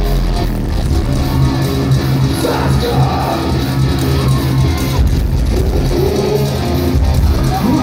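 Live heavy rock band playing loud, with distorted electric guitars and drums, heard from among the audience in the hall.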